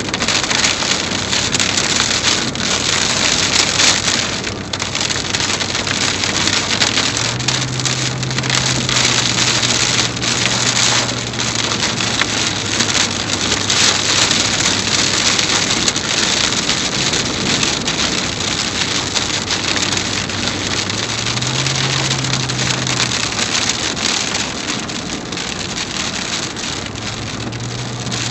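Dense, steady rain and wind noise on a moving car, heard from inside the cabin. Underneath runs a low hum from the car that steps up in pitch a few times.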